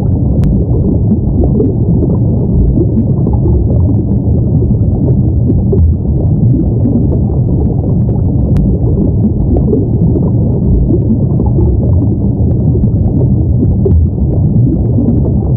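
Underwater ambience soundtrack: a loud, steady, deep rumble of water with bubbling through it, and a faint tick twice.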